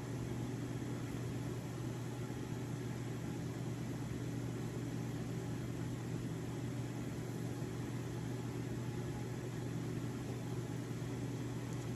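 Steady low machine hum that holds an even pitch and level throughout, with no distinct knocks or clicks over it.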